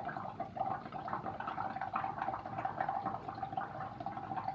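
Air blown steadily through a drinking straw into a bowl of soapy water: continuous bubbling as a mound of foam builds up.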